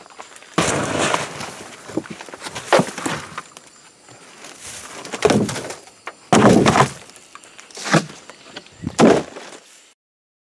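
Mulch being poured from a plastic bucket into a chest freezer, falling in several separate rushes and thumps as the bucket is tipped and shaken. The sound cuts off abruptly near the end.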